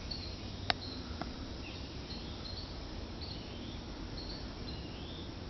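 Outdoor ambience of short, high chirps from birds or insects, repeating about once a second over a steady low background noise. A single sharp click comes a little under a second in.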